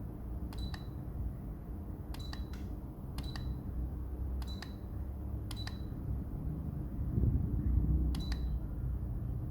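Electric fan running with a low, steady hum. Six short beeps, each with a click, sound over it at uneven intervals, like the fan's control unit acknowledging setting changes.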